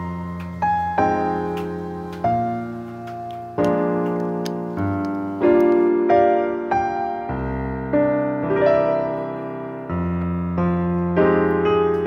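Background piano music: a gentle run of single notes and chords, each struck note fading before the next.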